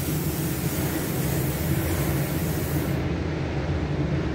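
Sunscreen spray bottle spraying a fine mist onto skin: one continuous hiss that cuts off about three seconds in, over a steady low rumble.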